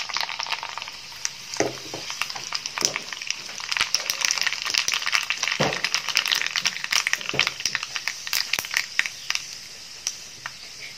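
Mustard and fenugreek seeds frying in hot coconut oil in a pan, the tempering (tadka): a steady sizzle full of sharp crackles and pops as the mustard seeds splutter, with a few louder cracks.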